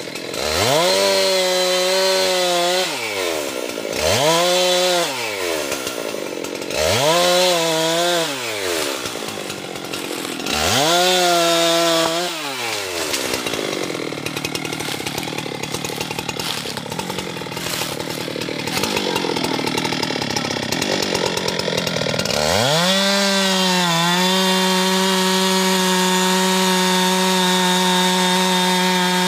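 Husqvarna chainsaw revved in four short bursts, each rising and then falling back. After a rougher stretch it runs up again and holds steady at full throttle.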